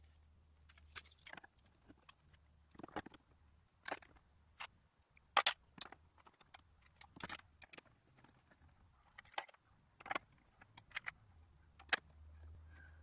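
Irregular clicks and light taps of a 7-inch LED headlight and its metal mounting ring being handled and pressed into a motorcycle fairing, with a screwdriver working at the ring near the end. A faint low hum runs underneath.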